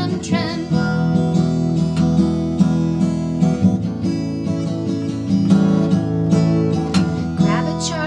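Acoustic guitar strummed in chords through an instrumental break. A woman's singing trails off at the start and comes back in near the end.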